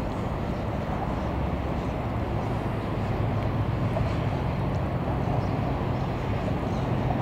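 Fishing boat's engine running steadily as it motors slowly past, a continuous low drone that grows a little louder about three seconds in.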